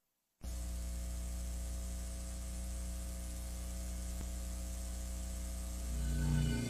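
Steady electrical mains hum with hiss on the audio of a VHS tape playback, after about half a second of silence at the start. Music begins near the end.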